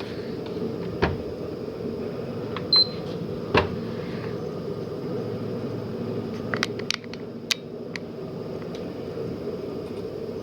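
A PlayStation 3 running with a steady hum, with scattered clicks from handling the console and one short, high beep nearly three seconds in.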